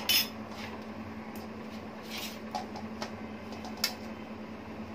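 Hot mustard oil with spices sizzling gently in a wok, over a steady low hum. There is a sharp click at the start and a light knock about four seconds in.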